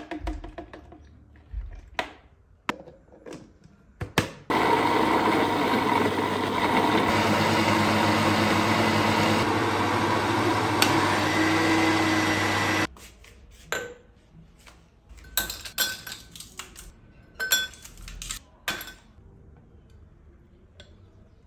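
An electric appliance motor running steadily for about eight seconds, switched on abruptly about four seconds in and cut off suddenly. Scattered clicks and knocks from handling come before and after it.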